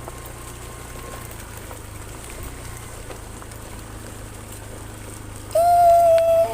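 Near the end a cow gives one loud, held moo that breaks briefly and trails off falling in pitch. Before it there is a steady low hum.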